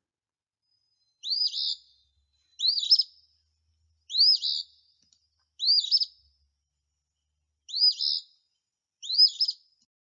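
Eastern phoebe singing its 'fee-bee' song: six two-part phrases about a second and a half apart, each opening with a quick high note that rises and falls.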